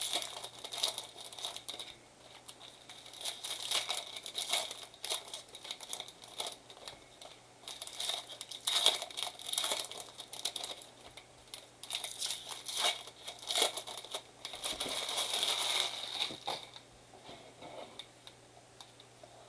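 Bowman blaster box and its foil trading-card packs being torn open by hand, the wrappers crinkling in irregular bursts, with a longer stretch of crinkling and tearing about fifteen seconds in.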